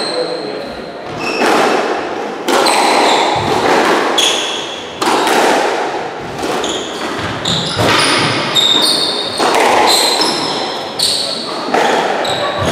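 Squash rally: the ball cracking off rackets and the walls at irregular intervals, with court shoes squeaking sharply on the wooden floor between shots.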